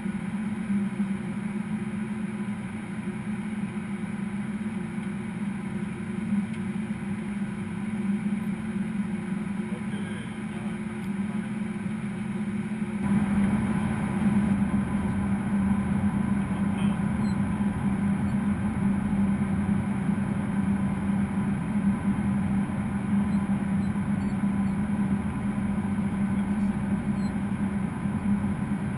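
Steady cockpit noise of a Gulfstream G550 business jet in flight: rushing airflow with a constant low hum. It steps up louder about halfway through.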